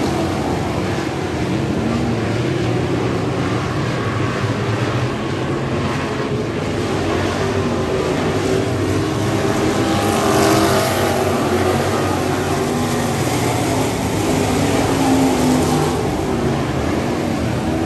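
A field of dirt-track stock cars racing around the oval, their engines running hard at speed and heard from the grandstand, swelling as the pack passes about ten seconds in and again near the end.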